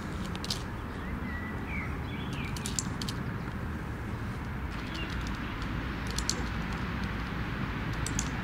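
A hand clicker clicks sharply a few times, a second or more apart, marking the dog's front paws on the stool. Birds chirp now and then over a low steady outdoor rumble.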